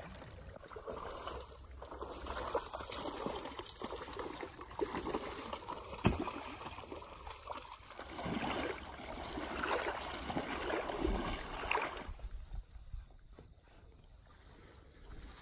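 Shallow marsh water splashing and trickling in irregular bursts as duck decoys are set out, with a sharp knock about six seconds in. It grows quieter over the last few seconds.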